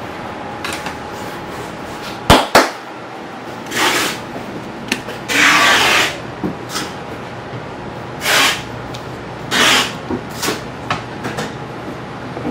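Two sharp knocks on a wooden worktable, then four or five short hissing sprays from a hand spray bottle wetting a log of bun dough and the table, the one about halfway through longer than the rest. Steady background hum of the shop throughout.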